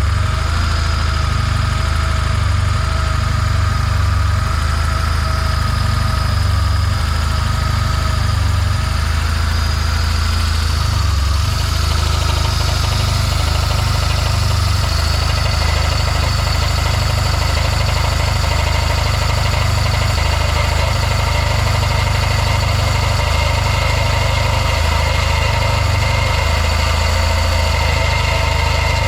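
BMW R1200C motorcycle's boxer-twin engine idling steadily, the noise its owner finds strange. About twelve seconds in, the higher tones above the engine shift to a new pattern.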